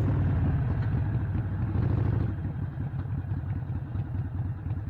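Harley-Davidson Iron 883's air-cooled V-twin engine running at low revs, a steady low rumble of rapid, uneven firing pulses that eases slightly about halfway through.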